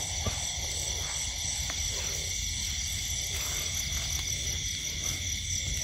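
Steady night chorus of crickets and other insects, several high trilling pitches held evenly throughout.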